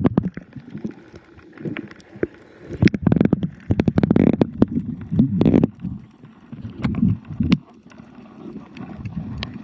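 Muffled, water-borne sound of swimming: irregular surges of sloshing and bubbling with many sharp clicks and knocks.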